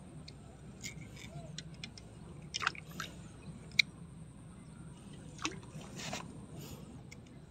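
Light water sloshing and handling noises, with a few brief splashy rustles and one sharp click, over a steady low background rumble.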